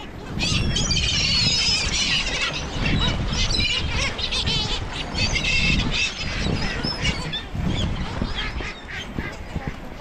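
A flock of gulls and geese calling over one another: many shrill, wavering gull squawks mixed with goose honks. The calls are densest in the first half and thin out towards the end.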